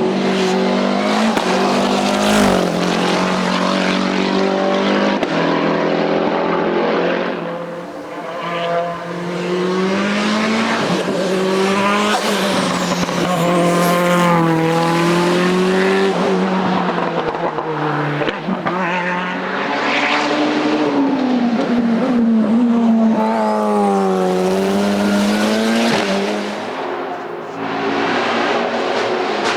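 Hillclimb race car engine at full throttle, its pitch rising and falling again and again as it revs.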